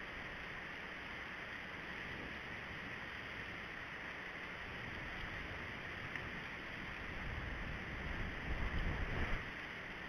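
Wind buffeting an outdoor camera microphone over a steady hiss, the low rumble picking up in stronger gusts near the end.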